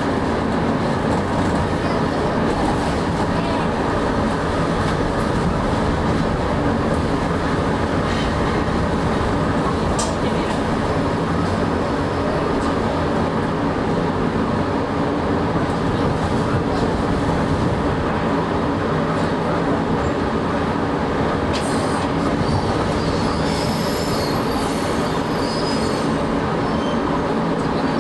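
Fukui Railway 610-series high-floor tram running on street track, heard from inside the cab: a steady rumble of motors and wheels on rails. A faint high wheel squeal comes in a few seconds before the end.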